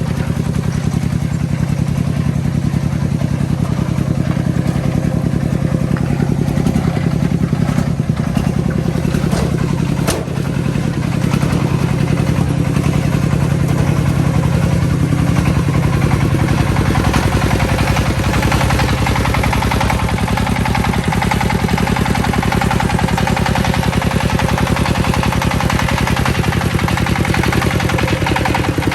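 Single-cylinder diesel engine of a công nông farm truck running steadily, with a fast, even firing beat and a brief dip about ten seconds in.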